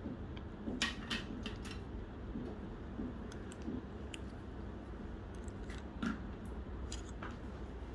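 A handful of light, separate clicks of metal dental instruments, such as a mouth mirror touching the teeth, over a steady low hum.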